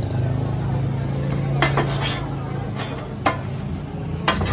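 Metal spatulas clinking against a flat steel griddle plate: about six sharp clinks in the second half, over a steady low hum.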